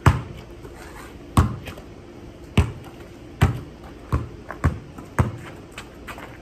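Basketball bouncing on a concrete driveway as a player dribbles: about eight sharp bounces at uneven spacing, coming quicker in the second half.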